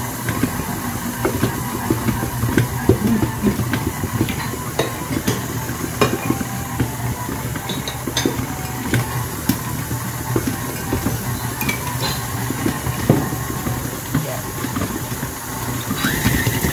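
KitchenAid Artisan stand mixer running, its beater working stiff pie dough in a stainless steel bowl: a steady motor hum with irregular knocks and clatter of the dough and beater against the bowl.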